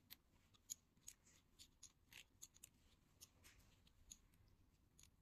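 Faint, irregular small clicks and ticks of metal parts being handled: a small open-end wrench working the knurled nut of a metal right-angle cable connector.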